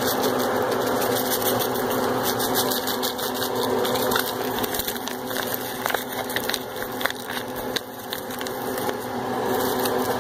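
A foil-lined seasoning mix packet crinkling and crackling as it is handled and its powder emptied into the skillet, with irregular sharp crackles, thickest in the middle, over a steady low hum.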